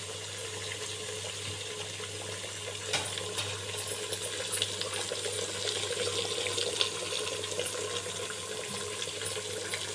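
Mutton pieces in spice masala frying in oil in an open pressure cooker: a steady sizzle with scattered small pops.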